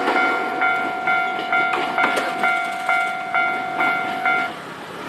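Japanese level crossing warning bell ringing its repeated electronic clang, about two strokes a second, over the noise of a train passing on the tracks. The bell cuts off near the end, which is the sign that the crossing is clearing.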